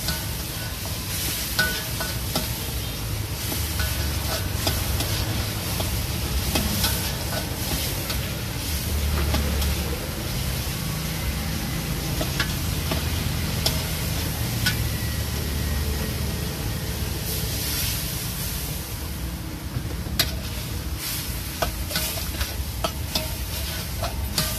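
Metal spatula stirring and scraping pieces of meat in sauce around a wok, with sizzling and frequent sharp clicks of the spatula against the pan, over a steady low rumble.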